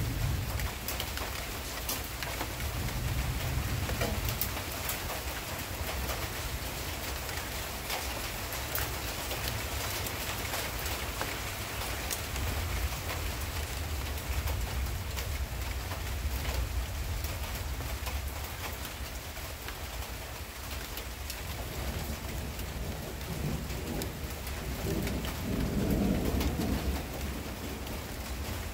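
Steady rain falling, with sharp ticks of drops hitting close by, over a low rumble of thunder that swells for a few seconds near the end.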